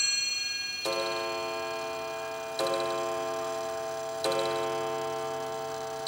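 The hour strike of an 1890s New Haven Chime No. 1 clock on its coiled wire gong: three blows about 1.7 seconds apart, each ringing on and fading. The first blow comes about a second in, while the last high notes of the eight cup-bell chime tune are still dying away.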